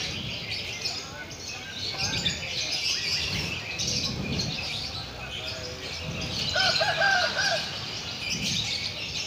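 Many caged lovebirds chirping at once in a dense, high-pitched chatter, over a murmur of people's voices. About seven seconds in there is a louder run of repeated rising-and-falling calls.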